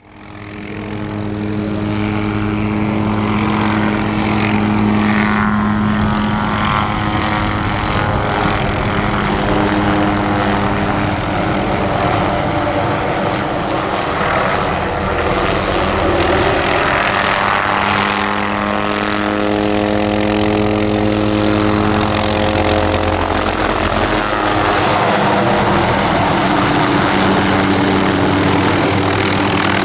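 Helicopter flying, its rotor and engine giving a loud, steady drone whose tone shifts now and then as it moves.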